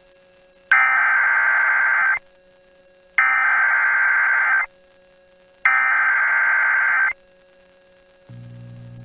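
NOAA Weather Radio SAME header: three identical buzzy bursts of digital data tones, each about a second and a half, with short quiet gaps between them. This is the coded start of an emergency alert broadcast. Near the end a low steady hum comes in.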